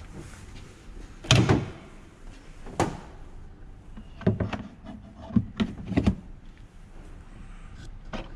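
A car door shutting with a thud about a second in, followed by a string of shorter clicks and knocks a few seconds later.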